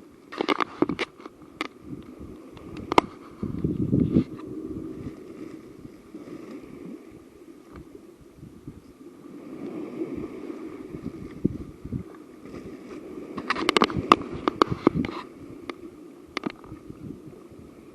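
Wind buffeting the microphone in low gusts, with scattered crackles and clicks of handling, in clusters near the start and again about three-quarters of the way through.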